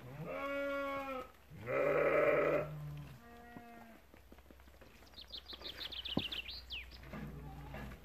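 Sheep bleating several times, the loudest bleat about two seconds in, followed by a small bird twittering in a quick run of short high chirps about five seconds in.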